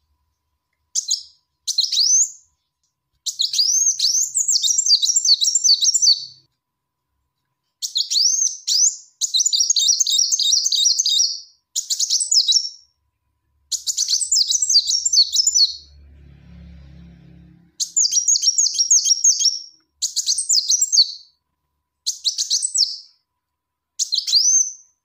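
Female Kolibri Wulung sunbird calling: high, thin chirps and fast chattering trills, given in short phrases with brief pauses between them. This is a lure call used to draw in a male.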